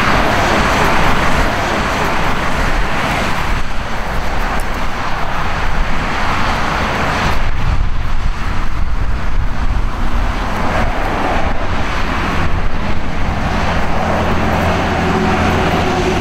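A motor vehicle on the move: a steady low rumble with a rushing road and wind noise. A steady engine hum becomes clearer near the end.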